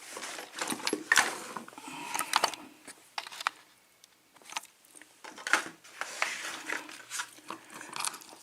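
Irregular small metal clicks, taps and scrapes from a euro cylinder lock and its key being handled and turned, with a few brief pauses.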